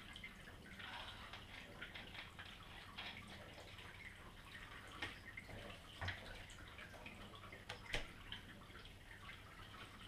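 Faint water trickling and dripping in a turtle tank, with a few sharper drops about five, six and eight seconds in.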